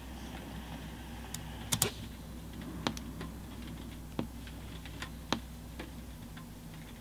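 Computer keyboard keys pressed one at a time: about eight separate sharp clicks, one or two a second, with a quick double click about two seconds in, over a low steady hum.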